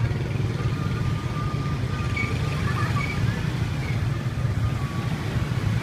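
Several small motor scooter engines running as the bikes pass close by, over a steady low rumble. Faint music and a few voices sound behind them.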